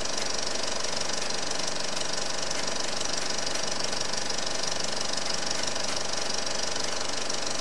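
Film projector running: a steady, rapid mechanical clatter with hiss, unchanging throughout.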